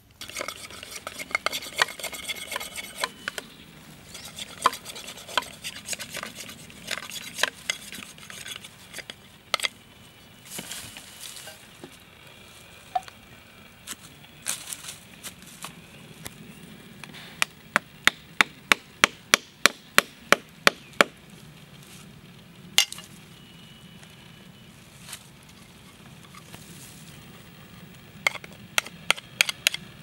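A knife cutting and carving green bamboo: scattered clicks and scraping, with an even run of about a dozen sharp knocks, roughly three a second, in the middle and another quicker run near the end.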